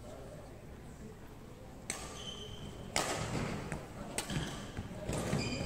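Sharp racket hits on a shuttlecock in a badminton hall, starting about two seconds in, with brief shoe squeaks on the court floor and voices in the background.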